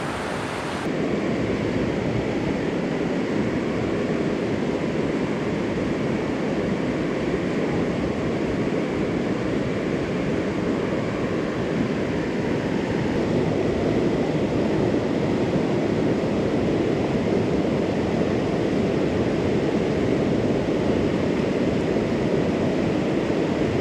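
Steady rushing of the Kettle River's water over rapids, an even roar with no let-up.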